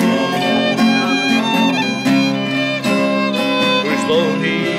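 Fiddle playing a melodic instrumental break between sung verses of a folk song, with sustained bowed notes, over steadily strummed acoustic guitar.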